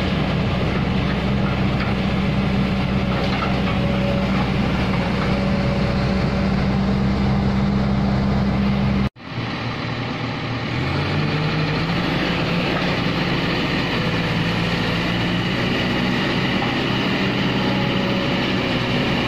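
Kobelco hydraulic excavator's diesel engine running steadily. The sound breaks off abruptly about nine seconds in and comes back, and the engine speed steps up about two seconds later.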